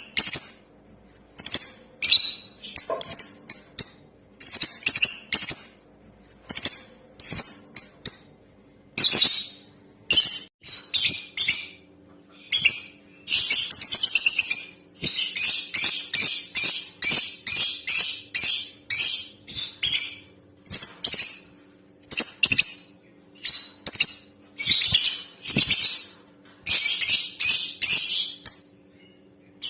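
Female lovebird calling in rapid bursts of shrill, high-pitched chirps, run together into long unbroken chattering about halfway through and again near the end. This is the bird's lure call used to set male lovebirds singing.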